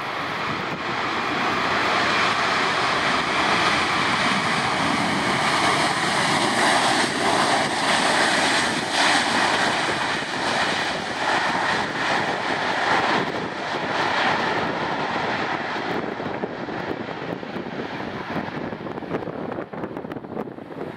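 Jet engines of a Swiss Airbus A320-214 (CFM56-5B) on landing, going into reverse thrust. The roar builds over the first couple of seconds and holds loud with a steady whine on top for about ten seconds. It then fades as the reversers are stowed and the airliner slows and rolls away.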